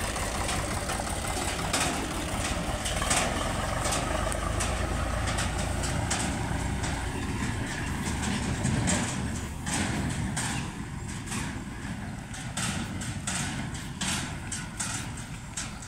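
Eicher 551 tractor's three-cylinder diesel engine running as it tows a thresher away, the engine sound growing fainter over the last few seconds. Sharp rattling clicks sound throughout.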